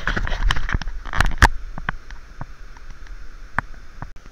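Handling noise: a quick run of sharp clicks and knocks in the first second and a half, thinning to a few scattered clicks, over a steady hiss.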